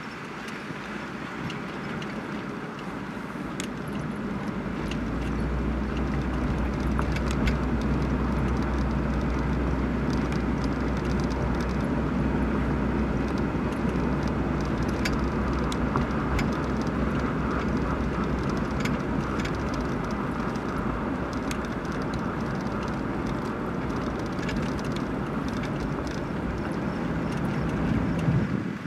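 A car driving, its engine and tyre noise heard from inside the cabin: a steady low rumble and road hiss that grows louder over the first few seconds as it picks up speed, then holds.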